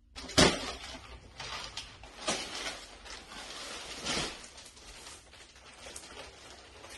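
Clear plastic wrapping on a rolled mattress crinkling and rustling as the mattress is unrolled, with louder crackles about half a second in, after about two seconds and around four seconds.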